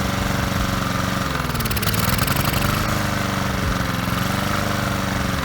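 Lawnmower's small petrol engine running unevenly, its speed sagging and picking back up about a second and a half in and again near the end: surging that carburettor cleaner sprayed into the air intake has not cured.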